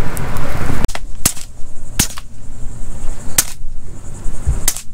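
Four shots from a Huben K1 semi-automatic PCP air rifle, each a sharp crack, fired at irregular intervals over about three and a half seconds.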